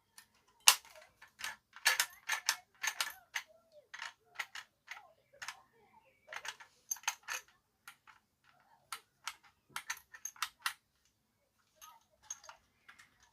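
Irregular clicks and knocks of a small plastic battery-powered bubble gun and its parts being handled on a workbench, several sharp taps in quick succession.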